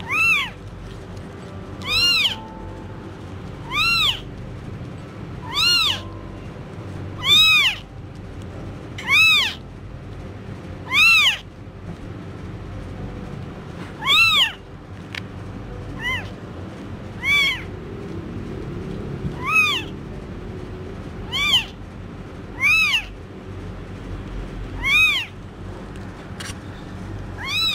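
Newborn kitten mewing over and over, each cry a high mew rising then falling in pitch, about one every two seconds with a brief pause near the middle.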